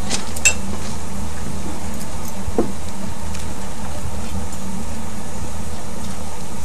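A narrow-gauge steam locomotive, built at Swindon in 1923, standing in steam with a steady low hum and hiss. A sharp, ringing metal clink comes about half a second in, and a duller knock about two and a half seconds in.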